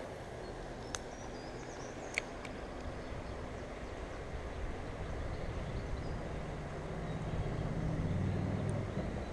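Steady low rumble of distant traffic, with a low engine drone swelling in the last few seconds. Two sharp clicks come about one and two seconds in, and a few faint high chirps.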